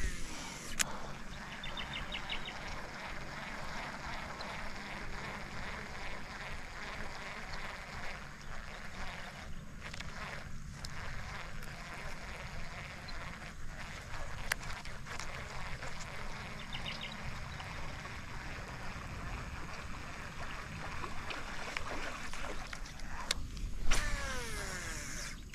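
Baitcasting reel cranked steadily during a retrieve, over a steady background hum. Near the end a new cast: a sudden swish, then the reel's spool whining down in pitch as the line pays out.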